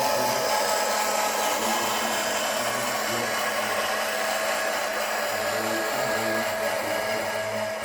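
Small electric motors of radio-controlled model trucks and construction machines whirring steadily, with a few held tones and a low rumble that comes and goes.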